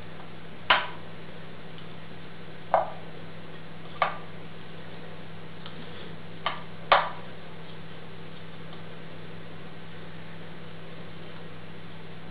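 Five light taps and knocks as raw potato slices are set down in an unglazed terracotta Roman pot, two of them close together about two-thirds of the way through, over a steady low hum.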